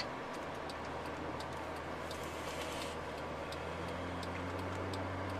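Car turn-signal indicator ticking about twice a second over the steady engine and road noise inside a moving car's cabin; a low engine hum grows a little stronger near the end.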